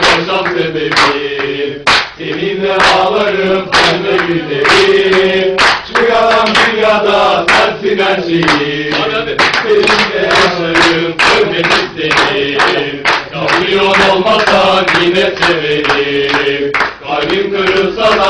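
A group of men singing a football chant together, with loud hand claps beating the rhythm about once a second.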